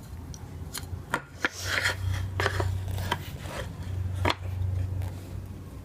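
Toy puzzle pieces clicking and knocking as they are handled and set in place: several sharp, separate clacks a fraction of a second to a second apart. A low steady hum runs beneath them through the middle.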